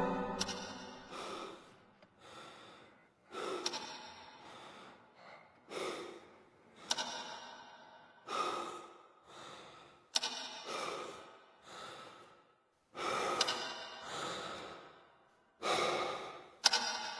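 A man breathing hard in quick, uneven sighs and gasps, about one breath a second, with wet licking and sharp mouth clicks as he licks a honeycomb (dalgona) candy to soften it.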